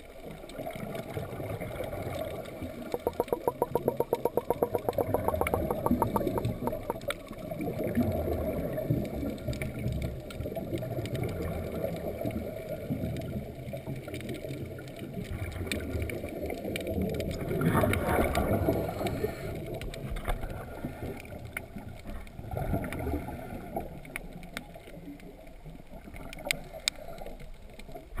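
Muffled underwater sound picked up by a GoPro inside its waterproof housing: a steady low rush and slosh of water. About three seconds in, a rapid rhythmic pulsing runs for a few seconds, and just past the middle comes a louder rush.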